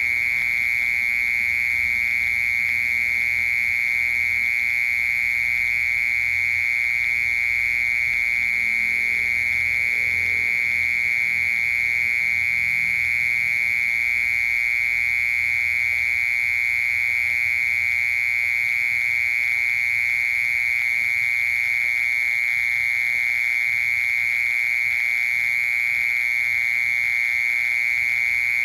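Cricket singing a steady, unbroken, high-pitched trill.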